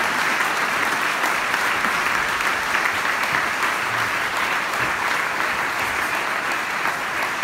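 Large audience clapping steadily, a dense even applause.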